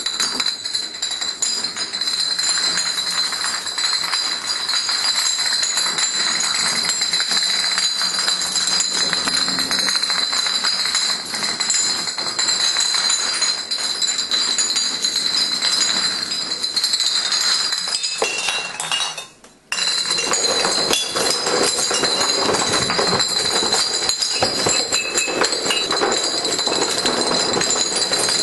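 Glass beer bottles toppling one into the next like dominoes: a dense, continuous clinking and rattling of glass. It cuts off suddenly about two-thirds of the way through, then starts again.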